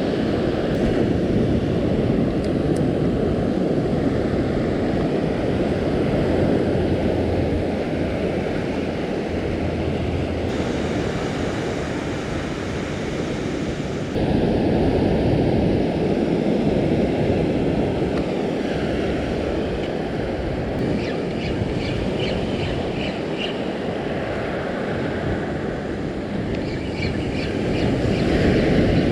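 Surf washing onto a sand beach with steady wind rumble on the microphone.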